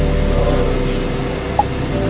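Mellow background music with held chords over a steady hiss of room noise, with one short blip about one and a half seconds in.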